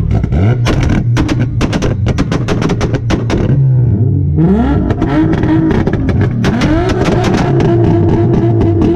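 Car engine held against a two-step launch-control rev limiter, the exhaust crackling and banging in rapid pops as it spits flames. About halfway through, the revs drop and climb back up twice, then hold steady at the limiter with the popping.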